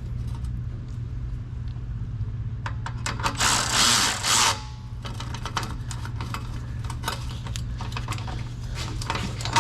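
Cordless ratchet running in a loud burst of about a second, some three and a half seconds in, with a brief break near its end. Scattered clicks of metal tools being handled, over a steady low hum.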